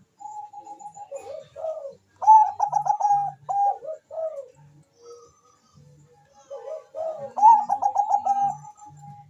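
Zebra dove (Bangkok perkutut) cooing song: two long phrases of quick staccato notes running together, each phrase ending in a few drawn-out coos.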